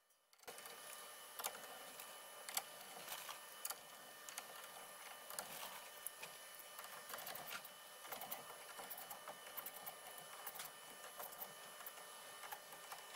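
Faint, irregular small metallic clicks and ticks of steering-wheel mounting bolts being fitted and turned in with a hex key, over a faint steady high hum.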